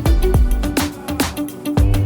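Background music with a steady beat: drums, bass and a plucked melody.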